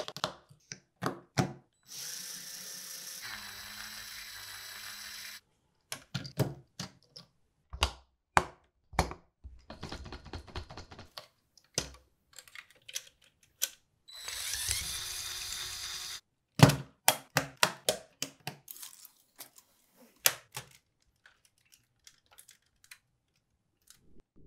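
Plastic Lego Technic parts clicking and snapping together by hand, with a quick run of clicks about two-thirds of the way in. Twice a steady whir lasts a few seconds, first about two seconds in and again near the middle.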